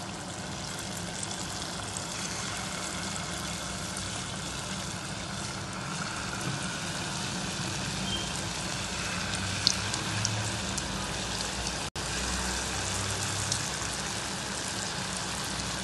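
Batter-coated water chestnut (singhara) pieces deep-frying in hot oil in a kadhai: a steady sizzle with a few small pops, briefly cutting out about twelve seconds in.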